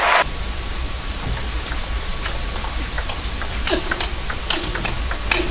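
Celluloid table tennis ball clicking off the table and the rackets during a rally: a run of sharp, irregular ticks over a steady background hiss.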